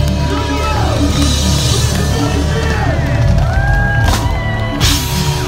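A progressive metal band playing live at full volume: heavy bass and drums, with a singer's voice over them. Two sharp, noisy hits stand out near the end.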